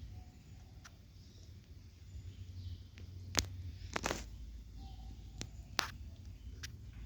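Kittens purring faintly, a low steady rumble, with several sharp clicks and taps, the loudest about halfway through.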